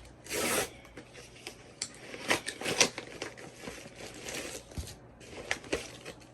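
A package being opened by hand: a short tearing rip, then rustling, scraping and clicking of packaging as it is handled.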